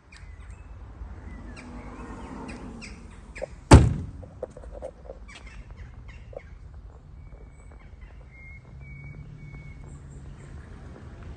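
Car bonnet shut with one loud thunk about four seconds in, with a brief ring after it, amid scattered lighter clicks and knocks.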